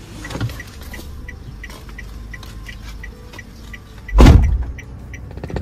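A Daihatsu car's warning chime beeping in short, high pips about three times a second while the driver's door stands open. About four seconds in comes one loud thump, most likely the driver's door being shut.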